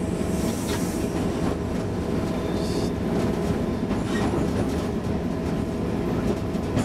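Cab interior sound of a British Rail Class 56 diesel-electric locomotive under way: its Ruston-Paxman V16 diesel engine runs at a steady level over wheel-on-rail rumble, with a few faint clicks from the wheels. There is a short high hiss a little before the middle.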